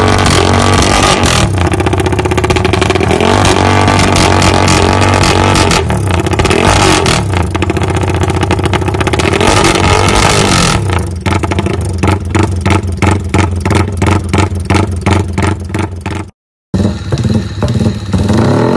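Yamaha 150 cc underbone motorcycle with an aftermarket exhaust being revved hard on its stand. From about eleven seconds in, the throttle is blipped rapidly, about three short bursts a second. Near the end the sound drops out for a moment, then another motorcycle's exhaust is heard running.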